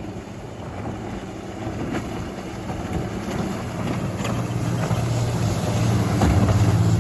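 Motorboat engine running as a boat comes closer, the hum growing steadily louder toward the end, with wind on the microphone.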